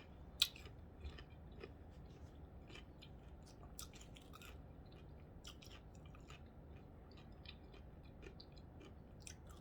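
A person chewing a mouthful of corned beef sandwich: faint, irregular soft mouth clicks, with one sharper click about half a second in.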